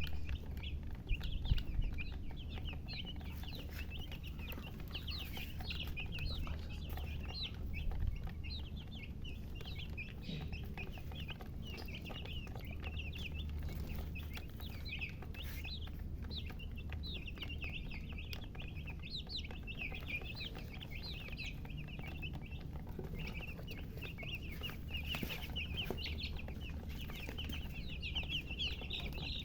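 Baby chicks peeping continuously, a dense stream of short high-pitched chirps, over a steady low hum.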